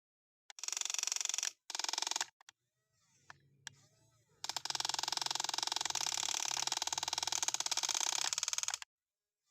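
Small electric motors and plastic gearboxes of a remote-control toy excavator buzzing as it works: two short runs in the first two seconds, then one long run of about four seconds that stops suddenly.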